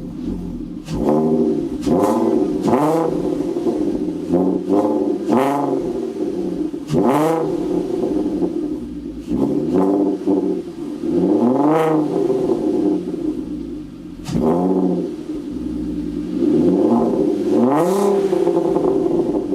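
VW Golf R32's 3.2-litre VR6 engine being blipped repeatedly at idle, about a dozen quick revs that each rise sharply and fall back to a steady idle.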